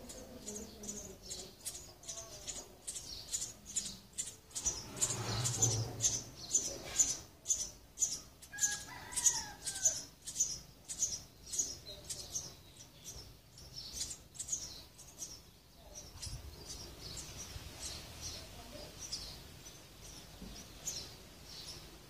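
House sparrow nestlings begging as an adult feeds them at the nest hole: a rapid run of short, high chirps, about three a second, loudest in the first half and thinning out towards the end.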